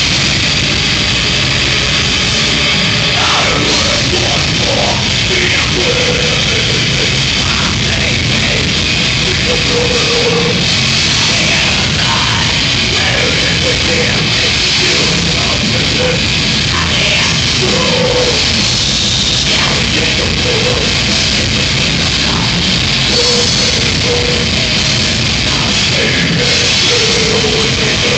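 Heavy metal band playing live and loud: guitars, keyboards and drums with a singer's vocals, as a dense, unbroken wall of sound.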